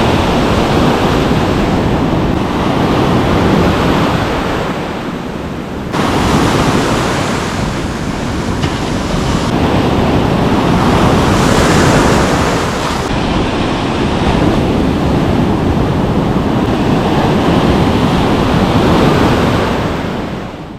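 Ocean surf breaking and washing on the beach, with wind buffeting the microphone. It is loud and steady, changes abruptly a couple of times, and fades out at the very end.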